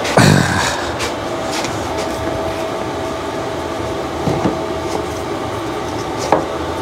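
Rear mudguard knocking and scraping against a motorcycle's tubular steel subframe as it is pushed into place for a trial fit, with one loud knock just after the start and two smaller ones later. A steady background rumble with a faint hum runs underneath.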